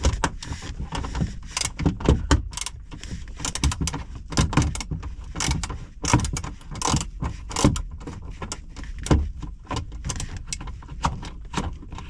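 Irregular clicks, taps and knocks of hand tools and plastic trim being worked on while the dashboard console is unbolted.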